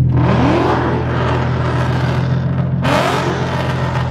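A car engine revving hard twice, about three seconds apart, each rev climbing in pitch, over a steady low rumble.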